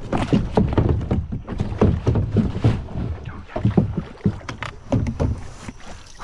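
Irregular knocks, bumps and clatter of gear and hands against a plastic kayak's hull during the struggle with a hooked fish, in an uneven series with no steady rhythm.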